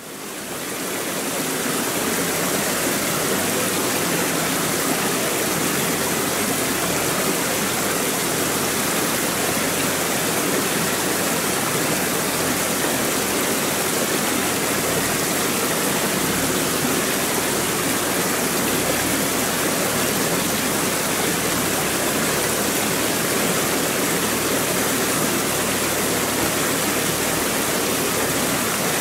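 Rushing mountain stream tumbling over rocks: a steady, even rush of water that fades in over the first second or two.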